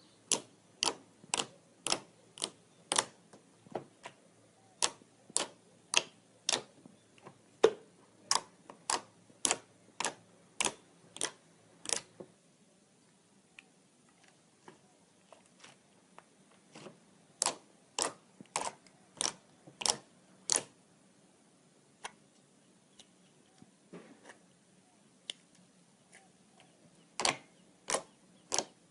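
Slime being pressed and squeezed, giving sharp clicks from popping air pockets, about two a second in runs with pauses between.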